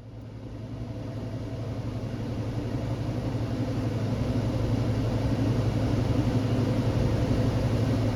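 HVAC unit's blower fan motor starting up and spinning up to speed, a steady low hum that grows louder over about five seconds and then holds steady. The fan is running again after the shorted rectifier was replaced.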